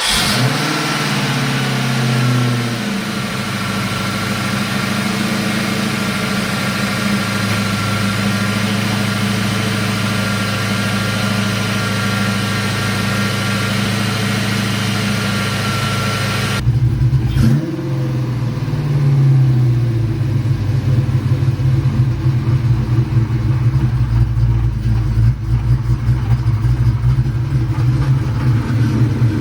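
Ford Mustang 5.0 V8 idling just after starting, its fast idle dropping and settling over the first couple of seconds, then running steadily. About seventeen seconds in, the sound changes abruptly. The engine briefly rises in speed and falls back, then idles on with a deeper rumble.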